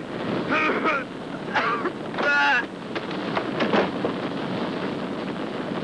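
Several short, indistinct shouts from crewmen in the first three seconds, over a steady rushing noise.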